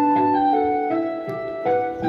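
Background music: a gentle piano melody with sustained chords.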